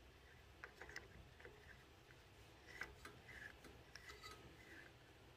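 Near silence, with a few faint light clicks and rubbing from a hand handling a dial indicator screwed into a scooter's spark plug hole.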